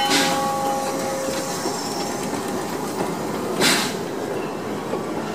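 Steam train rolling slowly past: the steady rumble and clatter of the locomotive and wooden passenger coaches on the rails. The last of the steam whistle's chord fades out about a second and a half in, and a short burst of hiss comes near the middle.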